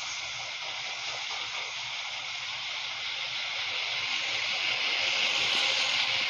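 Freight train rolling past: a steady hiss of steel wheels on rail that slowly grows louder.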